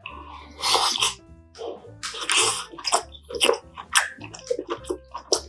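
Eating a dumpling and mushroom hotpot: two long, noisy slurps of hot broth, about half a second and two seconds in, then quick wet chewing smacks and clicks. Soft background music plays underneath.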